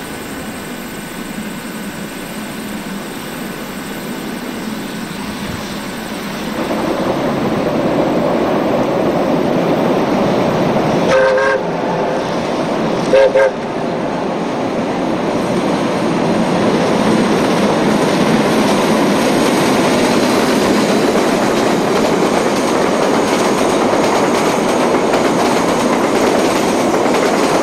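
KA 945, a KA-class 4-8-4 steam locomotive, and its train crossing a steel viaduct: a steady running rumble that grows louder about six seconds in as the train draws near. Two short whistle blasts sound near the middle.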